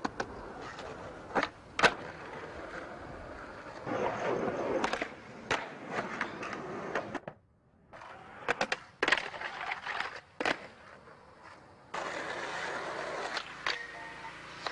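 Skateboard wheels rolling on pavement, broken by a series of sharp wooden clacks from the board popping, striking and landing. The sound drops out briefly about seven seconds in, then the rolling and clacks resume.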